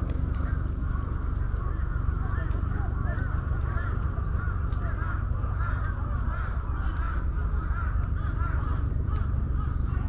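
Many birds calling at once: a dense chatter of short, overlapping rising-and-falling calls, over a steady low rumble.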